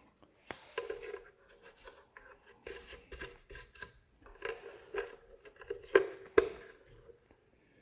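Hands fitting a wheel-kit part onto a soft plastic toy ghost trap: scattered light clicks, taps and rubbing of plastic on plastic, with two sharper clicks about six seconds in.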